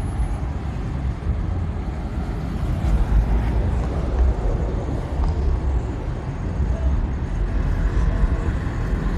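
Steady low rumble of road traffic, an even noisy roar without distinct events.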